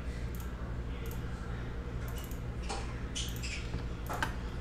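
A few faint, sharp computer-mouse clicks over a steady low electrical hum.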